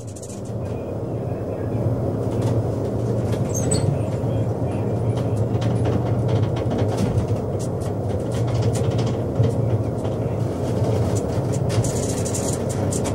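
Steady low drone of a beam fishing trawler's engine heard inside the wheelhouse, with scattered light rattles and indistinct radio-telephone chatter. It fades in over the first couple of seconds.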